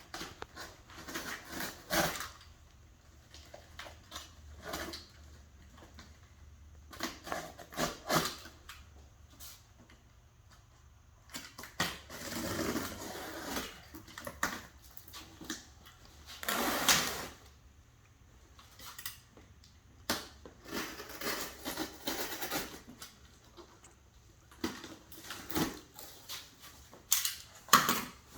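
A large cardboard box being opened and unpacked by hand: scattered knocks and clicks of cardboard and packing being handled, with a few longer rasping noises lasting about a second each.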